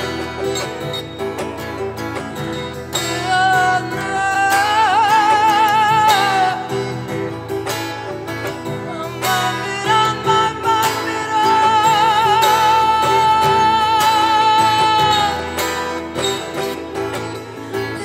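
Live acoustic Turkish folk-style music: a bağlama and an acoustic guitar play a steady plucked accompaniment, while a woman's voice holds long wordless notes with vibrato. The first runs from about three to six seconds in, and a longer one from about ten to fifteen seconds in.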